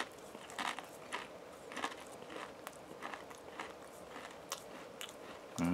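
Pringles potato crisps being chewed, a run of soft crunches about every half second. Near the end comes a short rising vocal sound.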